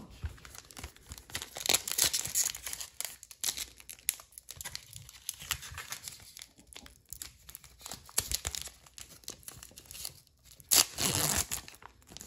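A foil-lined trading-card pack wrapper being torn open and crinkled by hand: an irregular crackling tear, with a louder burst near the end.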